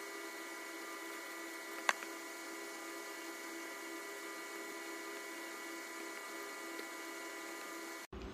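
Steady electrical hum made of several even pitches, with one sharp click about two seconds in.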